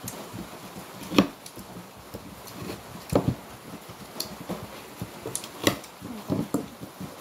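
A metal fork clicking and scraping on a plate while eating, in scattered sharp taps, the sharpest about a second in, with a few quieter knocks later.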